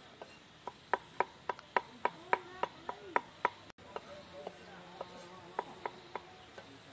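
Cleaver chopping garlic on a wooden cutting board: quick, even knocks about four a second, a short break about halfway, then a few fainter, sparser knocks.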